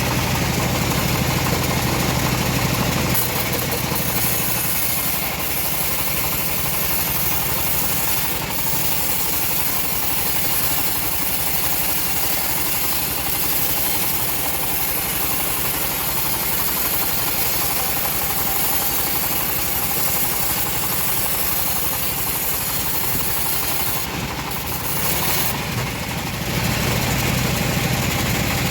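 Engine-driven band sawmill running steadily while its blade saws through a log. The low engine hum is strongest in the first few seconds and again near the end; in between, a steady high hiss of sawing covers it.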